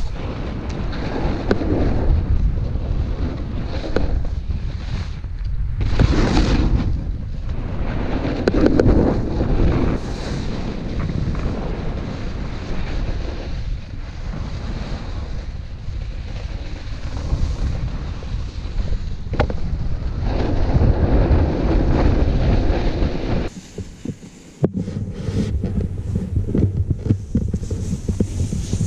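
Wind buffeting an action camera's microphone during a fast snowboard descent, with the board's scrape over packed snow swelling and fading as it turns. About three-quarters of the way through, the sound drops abruptly and turns quieter, with scattered sharp ticks.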